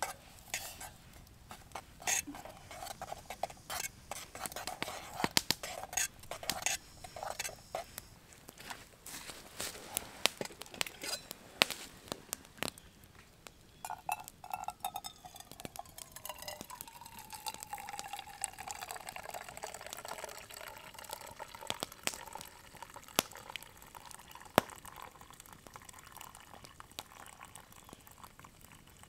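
A spoon stirring and clinking against the inside of a metal pot of coffee. About halfway through, the coffee is poured from the pot in a thin stream into a metal camp mug, a steady pouring tone that drifts in pitch. Scattered campfire crackles run under both.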